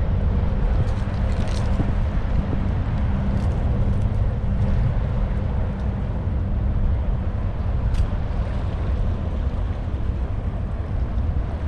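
Outdoor waterfront ambience: a steady low rumble of wind on the microphone under a distant engine drone that fades out a little past halfway, with a single sharp click about eight seconds in.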